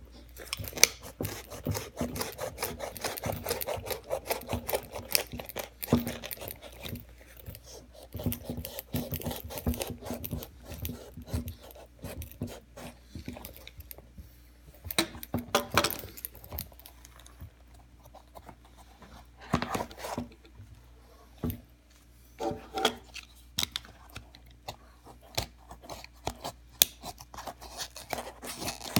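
Utility knife sawing through a Timberland boot's leather upper and sole seam, in many short scraping strokes, dense at first and then in sparser bursts with a few louder ones. The blade is dull and needs replacing.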